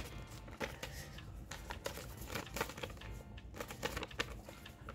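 Paper slips rustling and crinkling as they are handled and unfolded by hand, short irregular rustles throughout, over faint background music.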